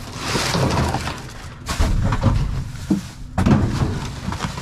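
Dumpster contents being rummaged through by hand: rustling and clattering of trash and junked auto parts, with two heavier knocks, one about a third of the way in and one about two-thirds in.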